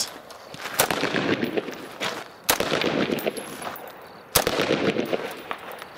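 Three rifle shots, a little under two seconds apart, each followed by a long echoing tail.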